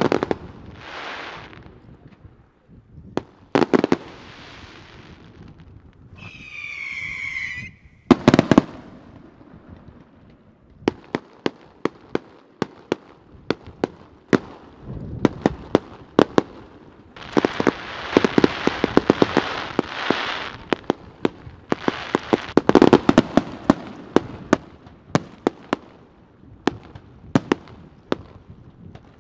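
Fireworks display: a string of sharp bangs from aerial shells launching and bursting, with long stretches of dense crackling and hiss. One whistling firework sounds about seven seconds in, its pitch dropping slightly at the end.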